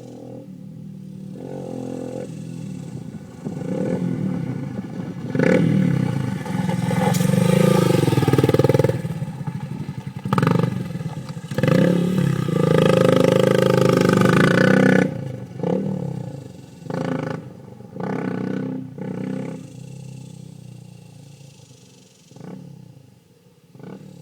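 Honda CRF230M's single-cylinder four-stroke engine through a Two Brothers aftermarket exhaust. It grows louder and runs hard for about ten seconds, its pitch rising and falling, then gives several short bursts of throttle.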